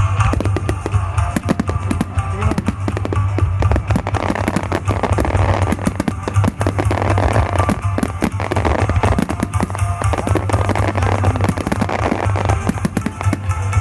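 Fireworks bursting and crackling in quick, irregular succession, over music with a heavy steady bass.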